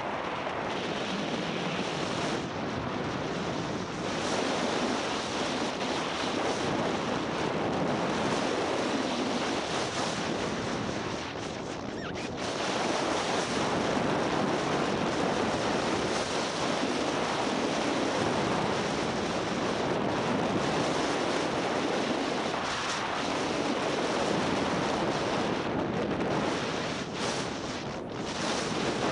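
Skiing down a groomed run: a steady rush of wind on the microphone mixed with the hiss of skis sliding over packed snow, easing briefly a couple of times.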